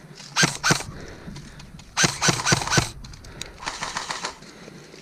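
Airsoft rifle firing sharp single shots close by: two shots, then a quick run of four about a second and a half later, followed by a brief softer rattle.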